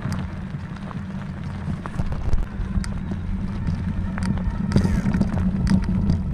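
A motor vehicle running with a steady low engine drone, with scattered clicks and knocks over it.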